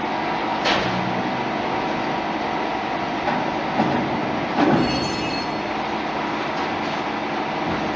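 Automatic potato chips frying machine running with a steady mechanical hum and whine. There is a click about a second in, then a knock and a brief high squeal of metal near the middle.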